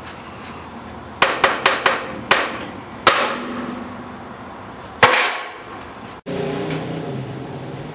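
Hammer blows on metal: a quick run of four strikes, then three single blows that ring out as they decay. Near the end the sound cuts abruptly to a steady low hum of background noise.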